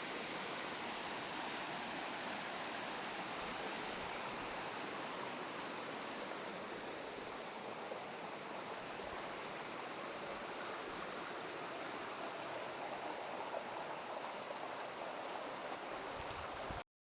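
Water of a waterfall and its stream rushing, a steady even noise that cuts off suddenly near the end.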